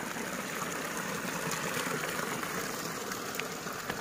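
Water running steadily in a shallow, stony irrigation ditch, a continuous trickling wash.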